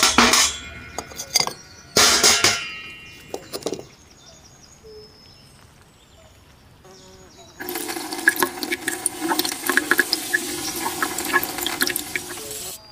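Small metal gun parts clattering into a basin twice in the first few seconds. Then, from about halfway through, liquid pours into the basin over the rusty derringer parts, a steady splashing rush with crackles, which cuts off suddenly near the end.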